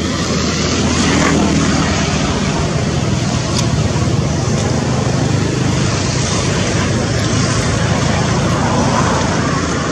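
Steady motor vehicle noise, an engine running with a low hum under a constant hiss.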